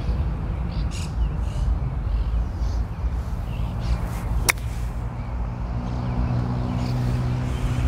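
A single crisp click of a wedge striking a golf ball off the grass on a flop shot, about halfway through, over a steady low rumble.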